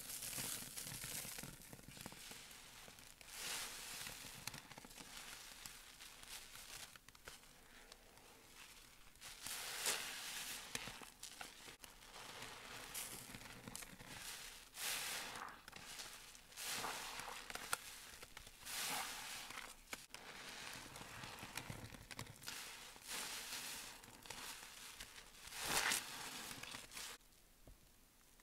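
Soapy sponge being squeezed by hand in a tub of suds: wet squelches with crackling, hissing foam, one squeeze every couple of seconds, stopping shortly before the end.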